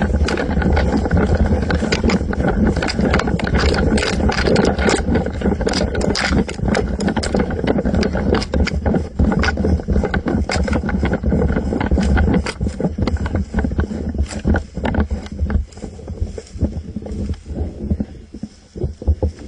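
Handling noise on a camera mounted on an airsoft rifle: a steady low rumble with many irregular knocks and rattles, easing off near the end.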